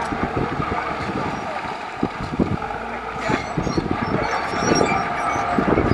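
Heavy earthmoving machinery working, a bulldozer or dump truck, with a steady engine noise and many irregular low knocks and thumps, partly wind on the microphone.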